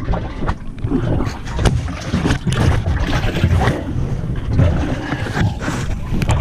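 Handling noise: the phone's microphone rubbing and knocking against shirt fabric and buffeted by wind, an uneven rumble with irregular crackles.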